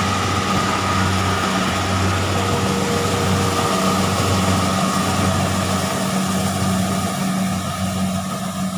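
Engine running steadily, with a low hum and a thin high whine, its hum dipping briefly a few times.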